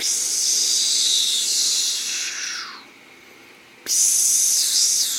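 A person making a hissing, whooshing sound effect with the mouth, twice: the first hiss slides down in pitch and stops about three seconds in; the second starts about a second later with wavering pitch.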